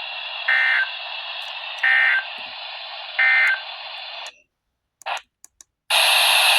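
Weather radio receiver hissing, with three short digital data bursts just over a second apart: the EAS end-of-message code that closes the warning. The hiss cuts out about four seconds in, and after a few faint clicks a louder burst of static starts near the end.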